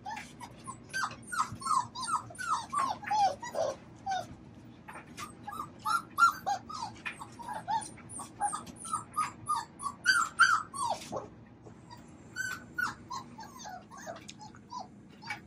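A litter of Labrador retriever puppies whining and yipping: many short, high cries that mostly fall in pitch, overlapping and coming several a second, with a brief lull about two thirds of the way through.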